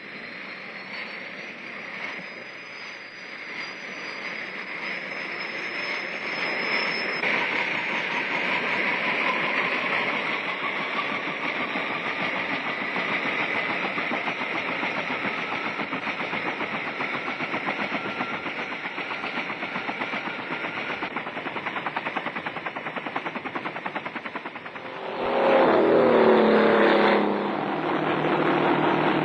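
Bell UH-1 Huey helicopter: a high turbine whine rising in pitch over the first few seconds, then the turbine and rotor running steadily as it lifts off. About 25 seconds in it gives way abruptly to a louder, lower engine note: a river patrol boat (PBR) running at speed.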